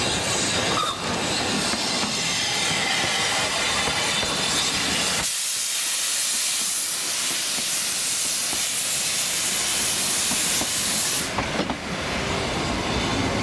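Narrow-gauge steam locomotive venting steam with a loud steady hiss for several seconds in the middle, the engine's low rumble dropping away while it hisses. The rumble and light clicking of the train rolling along the track return near the end.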